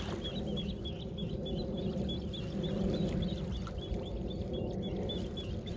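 Animal chirping: a rapid, even series of short high chirps, about five a second, over a steady low rumble.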